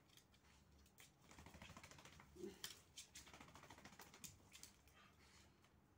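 Faint, irregular clicking and pattering of small dogs' claws on a tile floor as they walk about, with a brief faint whine about two and a half seconds in.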